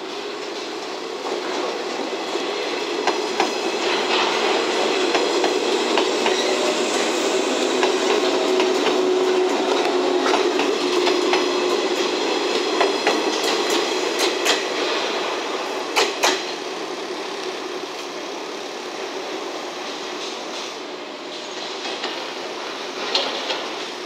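JR West 113 series electric train, a four-car set, running past at low speed: a steady rail rumble that swells and then fades, with sharp clicks of the wheels over rail joints and points, clustered about two-thirds of the way through.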